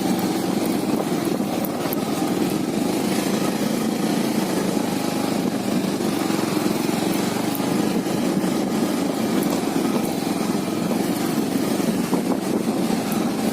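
Engine of a moving vehicle running steadily, a constant drone with no change in pace.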